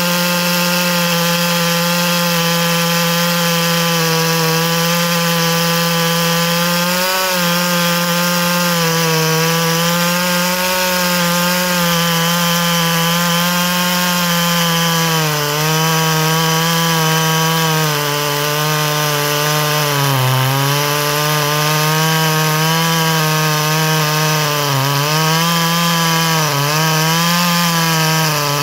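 G444 clone chainsaw (a copy of the Stihl MS 440) running flat out while cutting a big green hardwood log on a 36-inch bar with full-chisel chain. The engine note holds steady at first, then sags in pitch several times in the second half as the saw labours under the load.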